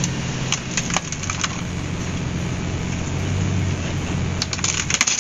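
Pickup truck engine running at low speed as its tire rolls over laptops, with sharp cracks and snaps of the laptops' plastic cases breaking: a few in the first second and a half, then a cluster near the end.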